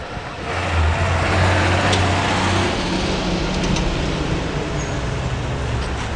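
A New York City Subway D train running at a station: a loud, steady rumble with a low hum that comes up about half a second in.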